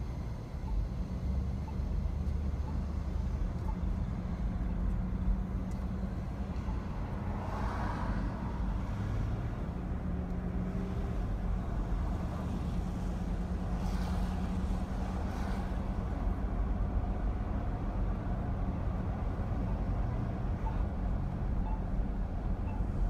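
Car's engine and road noise, a steady low rumble and hum, as the car waits at a light and then drives slowly along a city street. A few faint brief noises come up about a third of the way in and again past the middle.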